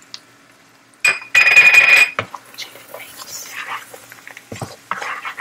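A loud, shrill buzz lasting well under a second, about a second in, followed by a wooden spoon stirring and scraping sautéing onions, garlic and dill around a nonstick pan.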